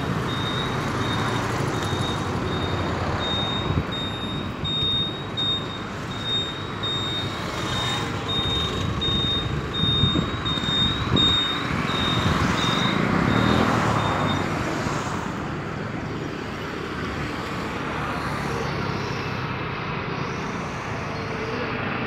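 Outdoor background of steady road-traffic noise, with a high, pulsing tone over it that stops about two-thirds of the way through.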